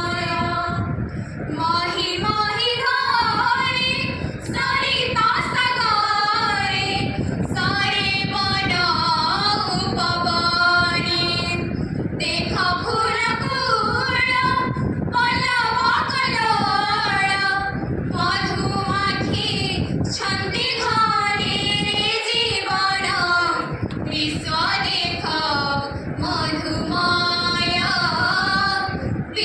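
A group of young women singing an Odia song together into a microphone, amplified through the hall's loudspeakers. The melody comes in phrases of several seconds, each followed by a short pause for breath.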